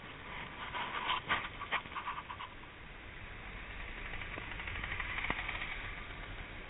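Scratching and crackling from the hand-held action camera being handled and turned around, followed by a rising rush of wind and road noise that peaks about five seconds in.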